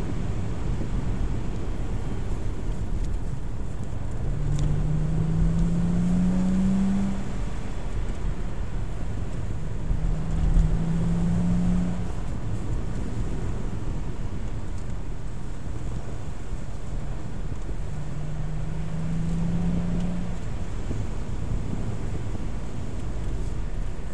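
Car driving along a country road, heard from inside the cabin: steady engine and tyre road noise, with the engine note rising briefly three times as it pulls, and a short knock about ten seconds in.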